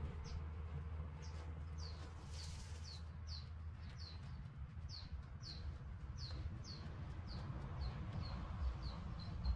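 A bird chirping over and over: short, high notes that each fall in pitch, about two or three a second, coming faster near the end.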